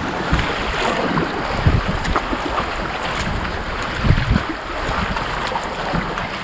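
Sea waves washing around rocks, with wind buffeting the microphone in a few low thuds.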